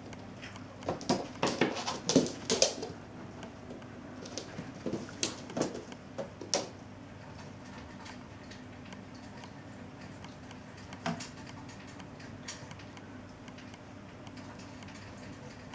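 Cat paws thudding and claws tapping on a wooden floor as a cat scampers and pounces after a laser dot: a quick flurry of taps in the first few seconds, another group a few seconds later, then only a few scattered ones.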